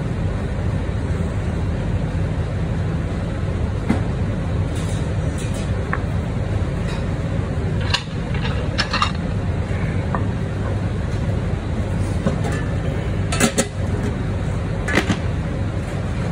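Steady low machine hum, with a few light clicks and knocks from sushi pieces, a knife and a ceramic plate being set down on a wooden cutting board.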